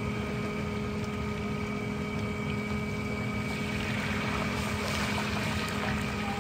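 Electric blower fan forcing air into a barrel stove's fire, a steady hum, with the rush of the flames and oil bubbling and frying in a large iron wok.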